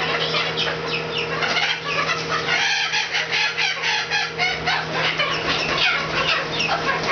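A group of month-old juvenile chickens peeping and clucking, many short falling calls overlapping, over a steady low hum.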